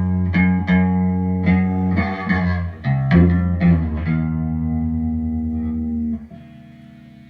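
Guitar playing a riff of picked low notes, then a held chord that is cut off about six seconds in, leaving a low hum.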